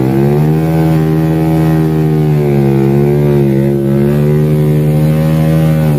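Motorcycle engine running at steady revs under load while the sack-laden bike is pushed through thick mud. The pitch wavers slightly, and the sound cuts off suddenly at the end.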